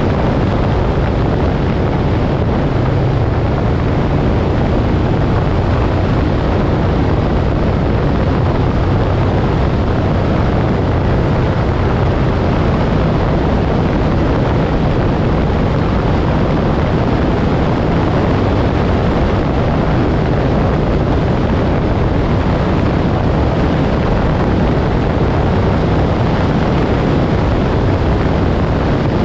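Moto Guzzi Griso's transverse V-twin running at a steady cruise while riding, mixed with wind rushing over the microphone.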